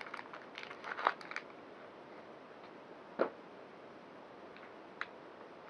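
Clear plastic pouch crinkling as a small electronic module is slid out of it, followed by a sharp click about three seconds in and a lighter one a couple of seconds later as the module is handled.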